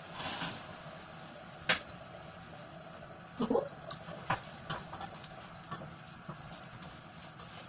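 Scattered small clicks and taps of a knife and hands working over a metal colander in a kitchen sink as shrimp are cleaned. It opens with a short hiss, has a sharp click about two seconds in, and a brief scrape near the middle.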